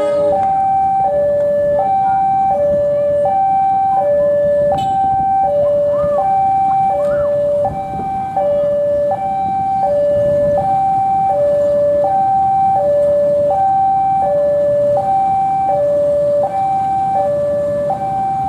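Railway level-crossing warning alarm sounding: an electronic two-tone signal alternating steadily between a higher and a lower note, about one change every 0.7 s, the warning that a train is approaching.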